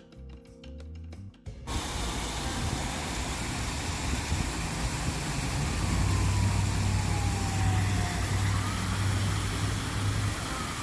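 A short stretch of music, then a steady hissing rush of outdoor noise, with a low steady hum in its second half.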